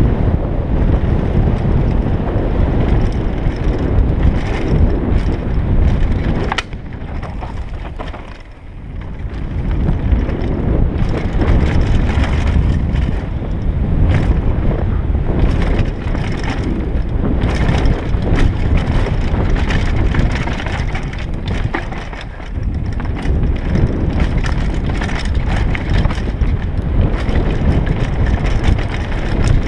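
Wind buffeting a helmet-mounted camera's microphone while a mountain bike's tyres run fast over a dirt trail. There are frequent clicks and knocks from the bike over bumps. The noise drops for a few seconds about seven seconds in, and briefly again a little past twenty seconds.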